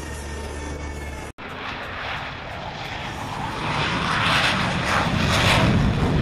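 Blue Angels F/A-18 Hornet's twin F404 turbofan engines roaring as the jet makes a low, fast pass, building to a loud peak in the last couple of seconds. A brief drop-out about a second in marks a cut between clips.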